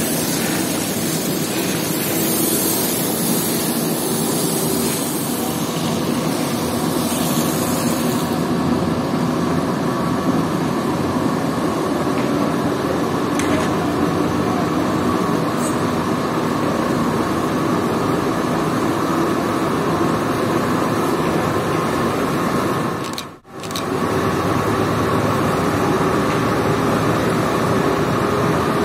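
A steady mechanical drone of machinery runs throughout, with hissing water spray from a hose over the first eight seconds or so. The sound cuts out for an instant about 23 seconds in.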